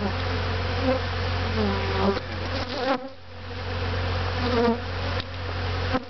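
Honeybees buzzing around an opened top-bar hive, with single bees passing close so that their buzz rises and falls in pitch. The buzzing drops away briefly about three seconds in.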